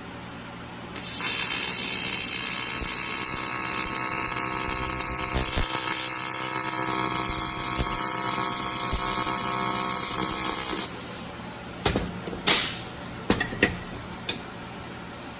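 AC TIG welding arc on aluminium, a loud steady buzzing hiss that starts suddenly about a second in and cuts off suddenly after about ten seconds. A few sharp knocks follow.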